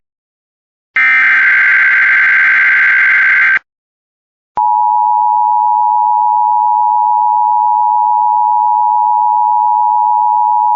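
Emergency Alert System broadcast: about a second in, a screeching SAME header data burst lasting about two and a half seconds, then a second of silence, then the steady two-tone EAS attention signal, which announces that a spoken warning follows.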